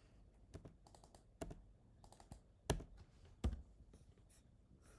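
Irregular clicks of computer keys being typed, with two louder key strikes a little past the middle.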